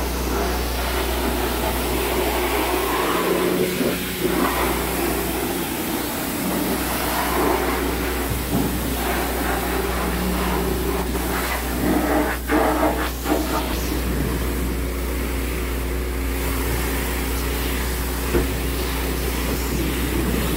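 Steady hissing water spray on a dump truck's wheels and tyres over a constant low engine hum, with a few short knocks about twelve seconds in.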